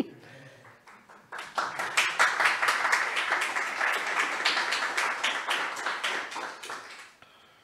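Audience applauding: many hands clapping together, starting about a second and a half in and dying away near the end.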